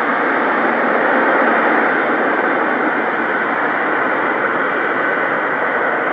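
The six Progress D-18T turbofan engines of an Antonov An-225 Mriya at takeoff power on its takeoff roll: a loud, steady jet roar.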